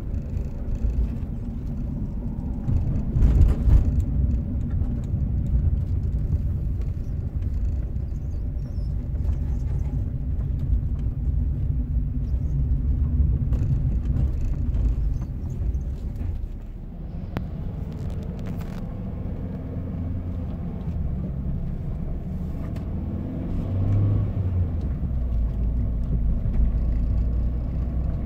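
Renault Kangoo 4x4 driving, a steady low rumble with rattling and knocking from the gearbox and a few sharper knocks. The owner suspects a failing bearing and damaged gear flanks in the front-axle differential inside the gearbox.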